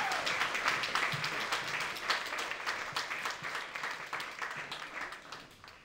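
Theatre audience applauding, the clapping thinning and dying away to near quiet.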